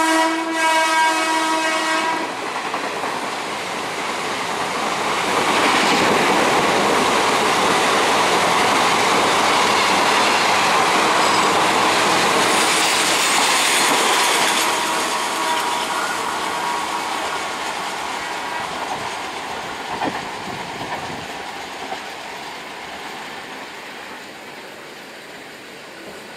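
Indian Railways WAP-4 electric locomotive's horn sounding for about the first two seconds as it hauls an express through at speed, then the coaches rushing past with wheels clattering over the rail joints. The rush fades over the last ten seconds as the rear of the train pulls away.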